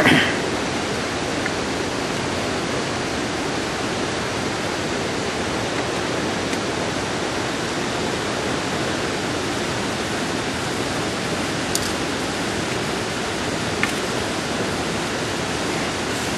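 Steady, even rush of falling and flowing water from Vernal Fall and its river. A brief sharper sound comes at the very start, and two faint clicks come near the end.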